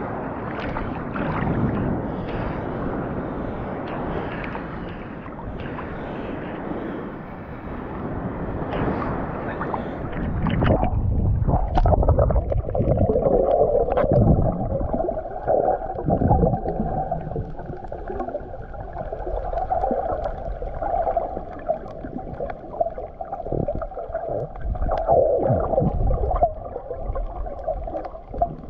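Sea water sloshing and splashing around a GoPro held at the wave surface; about eleven seconds in the camera goes under and the sound turns muffled, with underwater gurgling and low rumbles from the water moving around the camera housing.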